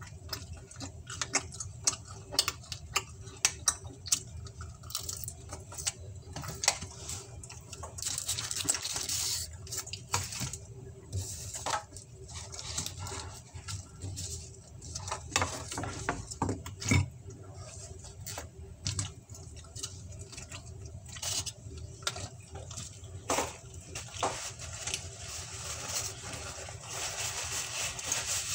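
Irregular clicks, taps and rustling from objects being handled right against the microphone, with stretches of scraping rustle.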